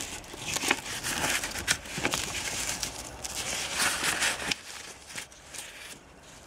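Old paper instruction booklet rustling and crinkling as its pages are handled and turned, with sharp crackles; it quietens for the last two seconds.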